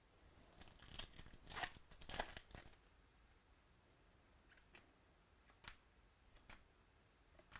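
Foil wrapper of a baseball card pack being torn open with a few quick rips and crinkles, followed by a few faint clicks.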